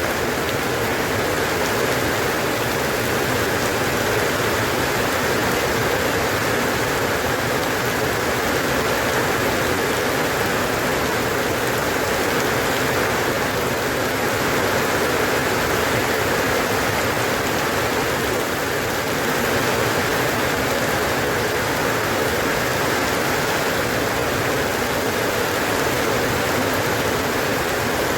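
Steady, dense rainfall: an even hiss of rain pattering on surfaces, unchanging in level.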